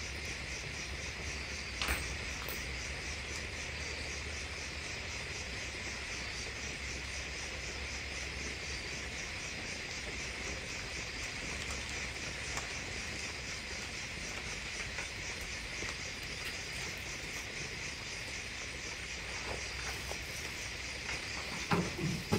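Night insects chirring steadily, a continuous high buzz with a fast, even pulse, and a single faint click about two seconds in.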